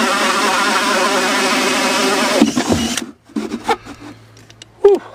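Cordless drill spinning a large hole saw as it cuts through the boat's fibreglass (GRP), the motor running under load with a wavering pitch. The drilling stops about two and a half seconds in, followed by a few knocks and one sharp knock near the end.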